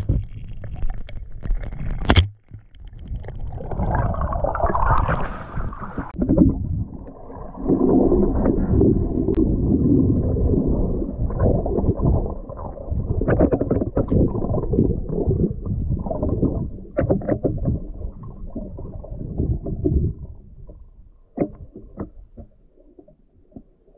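Muffled underwater rushing and rumbling picked up by a GoPro through its waterproof housing as a freediver swims, with scattered knocks and scrapes. One sharp knock comes about two seconds in, and the noise fades quieter near the end.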